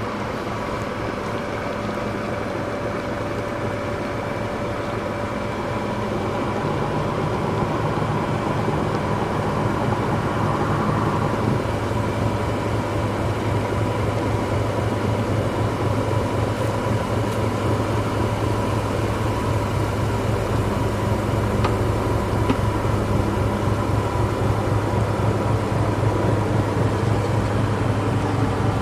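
A fishing boat's engine running steadily, its level rising a little several seconds in.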